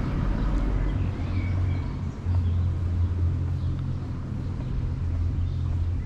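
A motor vehicle's engine running steadily nearby as a low drone, with a few short bird chirps.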